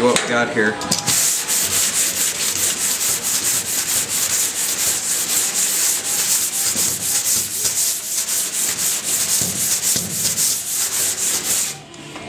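Pneumatic air hammer working a steel quarter panel against a slapping spoon held on the outside, a steady rapid rattling that starts about a second in and cuts off just before the end.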